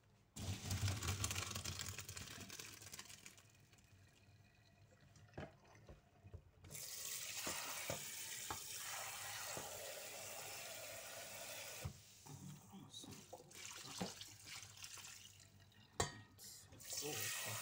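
Kitchen tap water gushing into a stainless steel sink and a metal pot of cooked pasta, rinsing it, in two spells. Between and after the spells the metal pot knocks and clanks against the sink as the pasta is tipped into a plastic colander, with one sharp knock near the end.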